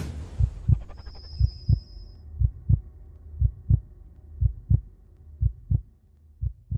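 Heartbeat sound effect in a suspense score: pairs of low thumps about once a second over a low hum, with a thin high tone for about a second near the start.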